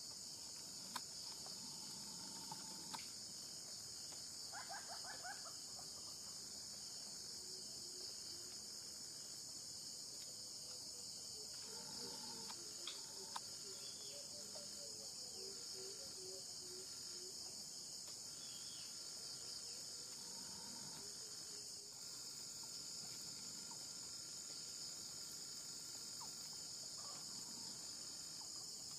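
Steady high-pitched insect chorus, with a run of faint low repeated calls in the middle.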